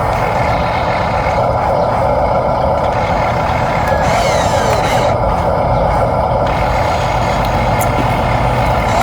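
Remote-controlled toy excavator and dump truck running, a steady mechanical whine and hum from their motors and gears.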